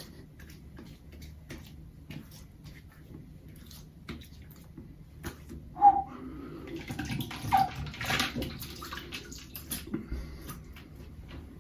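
Aftershave splash being poured into the hands and patted onto a wet face: wet splashing and slapping with scattered small clicks. A sharp knock with a short ring about six seconds in is the loudest sound.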